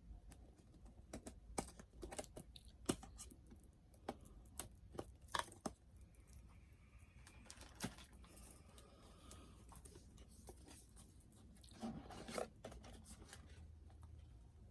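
Toy packaging being opened by hand: scattered clicks and crinkles of the small coffin-shaped box and its wrapping, tearing, with a louder burst of handling about twelve seconds in.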